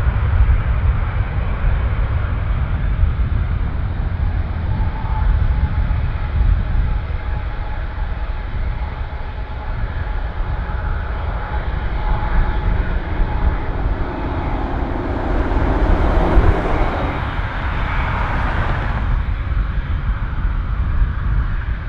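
Airbus A350 airliner departing, its Rolls-Royce Trent XWB jet engines at takeoff power: a steady, heavy jet rumble with a faint whining tone, swelling to a louder rush with a high hiss about three-quarters of the way through, then easing off.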